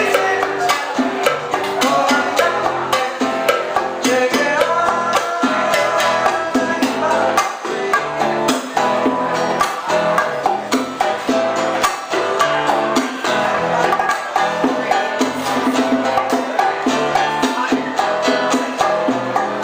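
Live old-school Cuban band music: percussion keeping a steady dance rhythm under a moving melody line.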